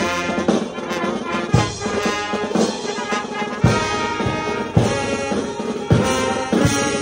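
Brass band playing a tune together, with trumpets, trombones and a sousaphone sounding in harmony over a steady beat.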